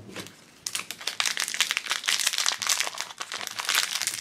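A Shopkins foil blind bag crinkling as hands pick it out of the case and work it open. A dense crackle starts about half a second in and keeps on.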